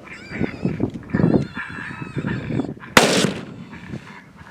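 Yipping, howling animal calls for about three seconds, then a single loud gunshot whose report trails off over about a second.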